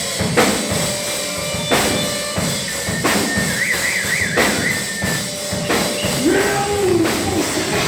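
Live hardcore band with a drum kit playing loud hits, bass drum and cymbals, amplified through a bar's PA. A wavering high tone runs for about a second and a half in the middle.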